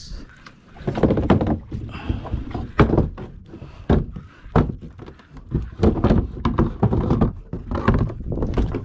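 Irregular knocks and thumps against the hull of a small fishing boat, a dozen or so, unevenly spaced.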